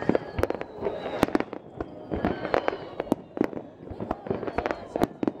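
Starmine fireworks display: shells bursting in rapid, irregular succession, several sharp bangs a second with crackle between them.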